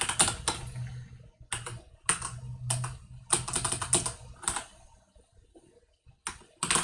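Computer keyboard being typed on: quick clusters of keystrokes entering an Emacs command, a pause, then a couple of single key presses near the end.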